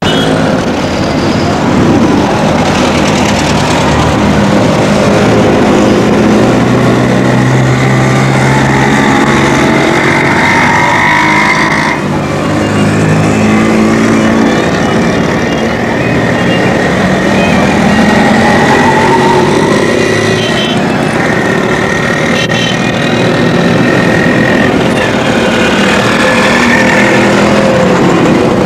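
Small motorcycle engines of several tricycles (motorcycles with sidecars) running as they pass, their pitch rising and falling, with voices mixed in.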